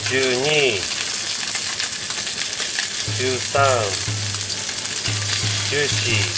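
Chicken wings sizzling in a hot frying pan as more raw wings are laid in to brown.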